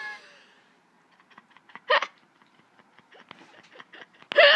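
Two short, pitched vocal sounds, one about two seconds in and a louder one near the end, with faint ticking and rustling between them.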